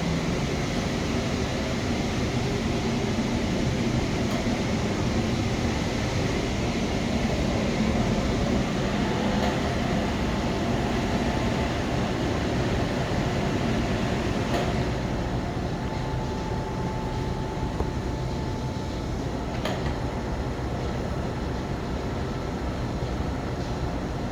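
Steady machinery hum and rush of a steam-boiler mechanical room, with a few faint clicks; it drops slightly in level about halfway through.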